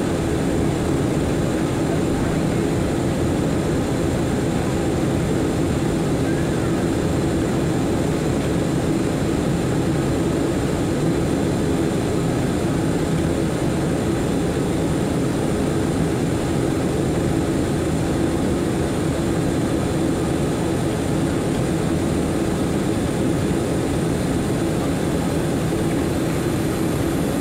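Steady jet-airliner cabin noise during the climb after takeoff: a constant low drone of engines and airflow with a faint high whine above it, heard from inside the cabin.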